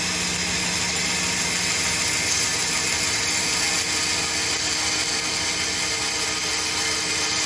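Bandsaw running and cutting a slow curve through a wooden block fed by hand: a steady, even sawing hiss over the machine's constant hum.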